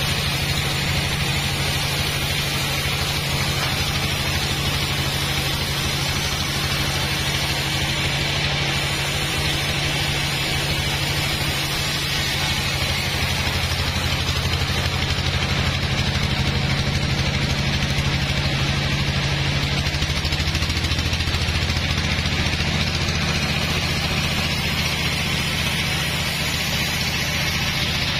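Stationary diesel engine running steadily under a wide hiss of exhaust noise. Its low note changes about two-thirds of the way through.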